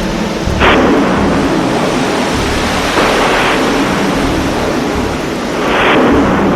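Space shuttle launch roar: a loud, steady rumbling noise with three brief crackling surges, about a second, three seconds and six seconds in.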